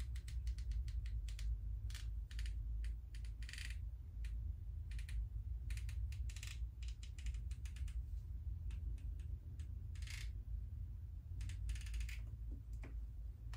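Light, irregular clicking and tapping with a few short scrapes as a small plastic paint cup and a thin tool are handled, over a steady low hum.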